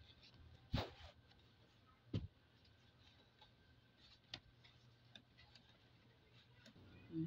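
Pliers and the metal ribs of an umbrella frame clicking now and then as a broken rib joint is worked on, a few sharp clicks several seconds apart over faint handling noise, with a short low thump near the end.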